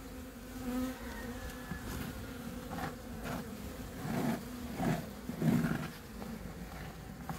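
Buckfast honeybees of an opened hive buzzing in a steady hum, swelling louder a few times about halfway through.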